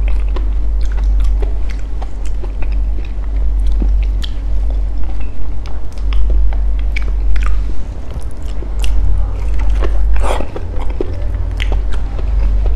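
A person biting and chewing soft, fresh durian flesh close to the microphone, with many small sharp mouth clicks and smacks throughout and a fuller bite about ten seconds in.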